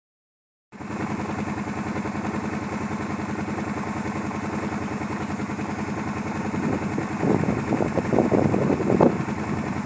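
Kawasaki Brute Force 750 ATV's V-twin engine idling with an even, pulsing beat, with a few louder surges in the last few seconds. It cuts in abruptly just under a second in.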